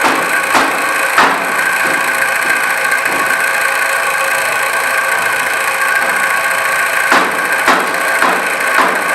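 Kitchen knife chopping tomatoes on a plastic cutting board: sharp knocks about every half second near the start and again near the end, fainter in between. Under it runs a steady mechanical hum.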